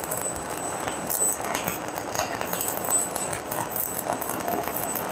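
Electric arc welding the last bead on a steel plate: the arc crackles and sizzles steadily, with spatter popping.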